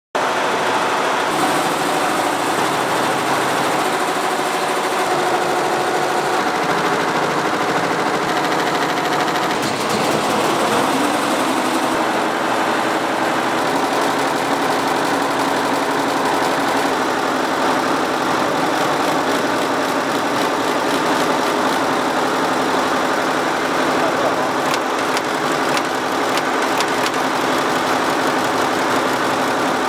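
Multi-head computerized embroidery machine with sequin attachments stitching at speed: a steady, fast mechanical clatter of the needles and sequin feeders. The sound shifts about ten seconds in.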